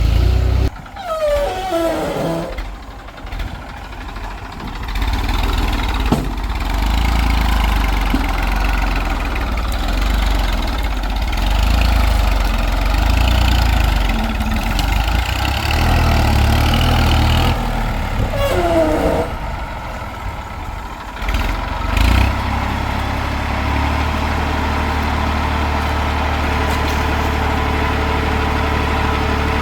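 Heavy diesel machinery engine running and working, its sound rising and falling, with two brief falling whines. About two-thirds of the way through it settles into a steady idle.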